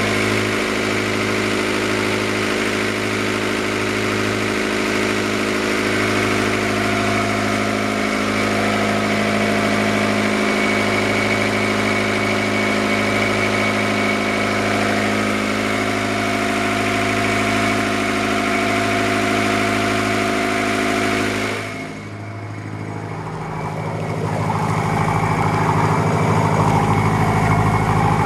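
1978 Yanmar DA25 marine diesel engine idling steadily, heard close up. About 22 seconds in it suddenly sounds more muffled and quieter, and a couple of seconds later the splashing of water beside the hull rises over the engine.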